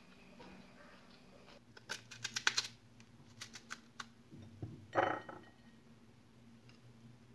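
Small knife cutting through a crisp pear by hand, heard as a quick run of sharp clicks and then a few scattered ones. About five seconds in there is a louder short knock with a faint ring as a pear half is set down on a ceramic plate.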